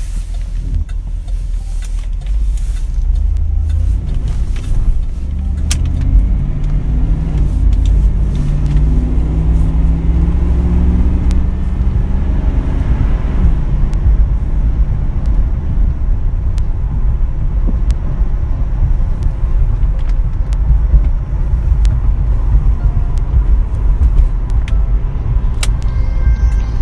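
1997 Pontiac Firebird Formula's 5.7-litre V8 heard from inside the cabin while driving: the engine note climbs in pitch as the car accelerates over the first dozen seconds, drops at a gear change, then settles into a steady low rumble with road noise while cruising.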